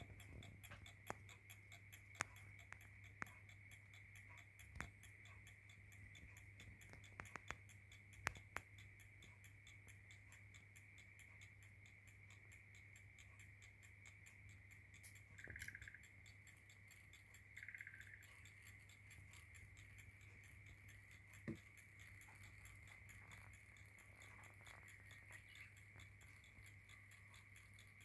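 Mechanical clock ticking faintly and steadily, running well with its gear pivot holes freshly adjusted. A steady low hum and a high steady tone lie under it, with a few sharp clicks in the first several seconds.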